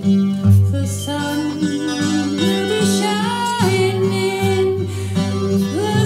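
A steel-string acoustic guitar plays chords under a woman singing a slow melody.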